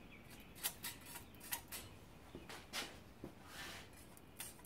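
Faint metal-on-metal scrapes and light clicks of a feeler gauge blade being slid and pushed under a steel straight edge lying across a Toyota 3S-FE engine block deck, checking the deck for warpage. The strokes are short and irregular, with a longer soft scrape about three and a half seconds in.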